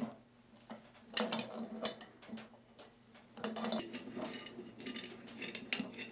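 Scattered metallic clicks and clinks of pliers and hands working the threaded shank loose from the stainless steel air cylinder of a Kinetic Water Ram drain cleaner.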